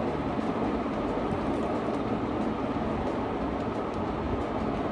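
A steady, even rumbling noise, strongest in the low and middle range, with faint crunchy clicks of chewing on top.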